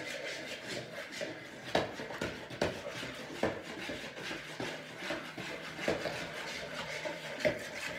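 Metal spoon stirring a liquid clear-slime mixture in a bowl, scraping round the sides and clinking against the bowl about once a second.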